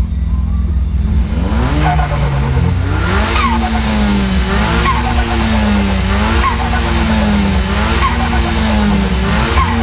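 Turbocharged VW Golf Mk5 GTI engine revved in repeated blips about every second and a half. Each blip ends in a quick falling whoosh of turbo flutter as the throttle closes.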